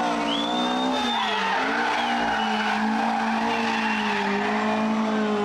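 Rally car engine running hard at fairly steady high revs while the tyres squeal in a slide. The squeal is loudest in the first second and comes back fainter twice later.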